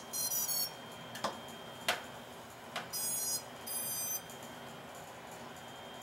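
Small FPV quadcopter (Makerfire Armor 85 HD) powering up as its battery is plugged in: three short sequences of high-pitched ESC start-up beeps, one at the start and two more around three and four seconds in, with a few clicks from handling the battery plug and frame between them.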